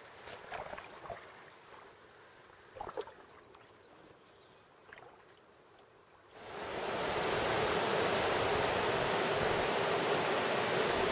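A canoe paddled on calm water, with a few soft paddle splashes. About six seconds in, the loud, steady rush of river rapids sets in abruptly and carries on.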